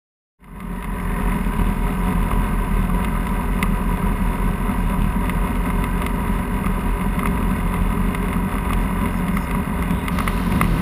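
Diamond Katana DV20's Rotax 912 four-cylinder engine and propeller running steadily, heard from inside the cockpit. It comes in abruptly about half a second in.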